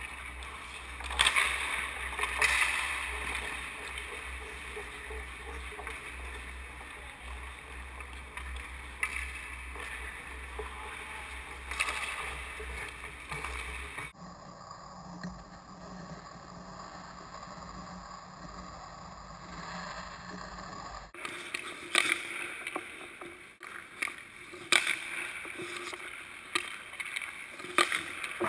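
Indoor ice rink: skates scraping and carving the ice over a steady background, with a low hum in the first half. Every few seconds comes a sharp crack of a hockey stick shooting a puck, or of the puck striking the boards or net.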